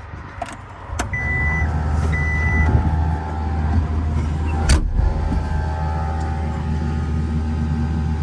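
Inside the cab of a John Deere 323E compact track loader: a click about a second in as the key is switched on, two short high beeps from the cab's warning buzzer, and then a steady low drone that runs on. A single sharp knock comes near the middle.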